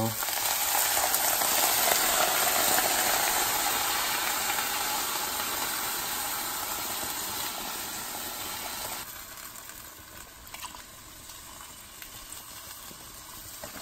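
Chicken stock poured from a carton into a hot enameled Dutch oven over seared venison shanks, a steady splashing hiss as the liquid hits the hot pot. Loudest at first, it fades slowly and drops off sharply about nine seconds in, leaving a quieter trickle.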